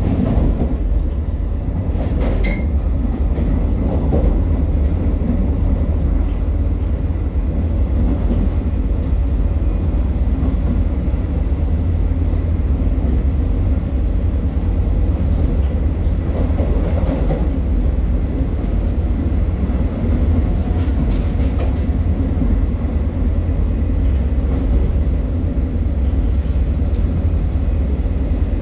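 Vande Bharat Express train running at speed, heard from on board: a steady, loud running noise with a heavy low rumble and a few faint clicks.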